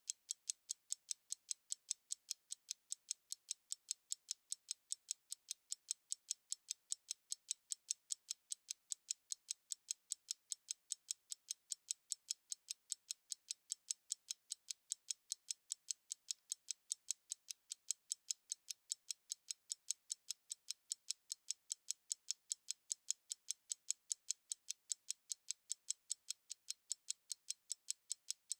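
Analog stopwatch ticking steadily: light, crisp ticks at about three a second, with no low end.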